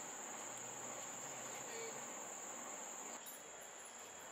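Insects trilling outdoors: a single steady, high-pitched tone that does not waver, heard faintly.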